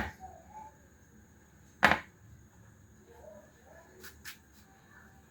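Two sharp kitchen knocks about two seconds apart, like a utensil or knife striking a hard surface, followed by a couple of faint clicks near the end.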